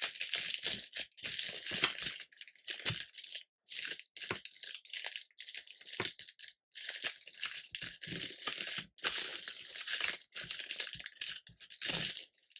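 Air fryer parchment paper liners crinkling and crackling as they are folded and creased by hand, in irregular bursts with brief pauses between them.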